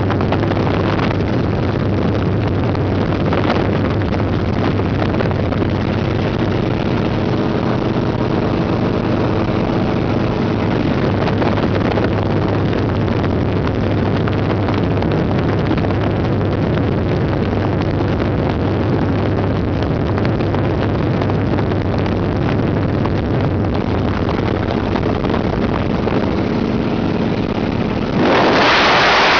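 Helicopter in flight heard from inside the cabin: a steady drone of engine and rotor with a constant low hum under a wide rushing noise. About a second before the end a sudden louder blast of airstream hits the microphone.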